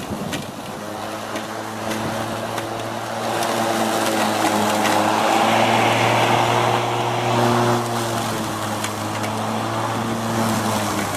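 Greenworks 20-inch 12-amp corded electric lawn mower running with a steady motor hum and blade noise. It grows louder about three seconds in and eases back a little near eight seconds.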